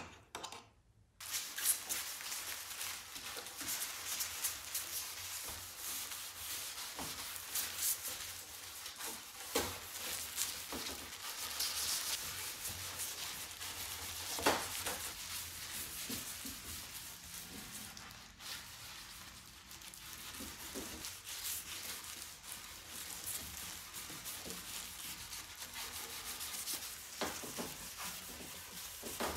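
A plastic-gloved hand rubs varnish into bare pine boards, a steady rubbing sound with scattered short scuffs and knocks. A short click at the very start comes as the varnish can's lid is pulled off.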